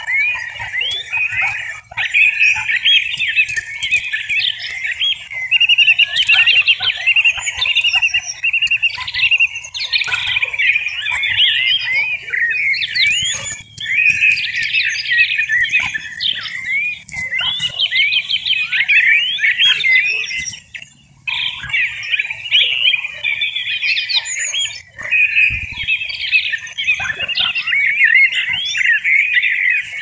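European goldfinch singing: a fast, twittering run of high, jumbled notes in long phrases, broken by a few short pauses.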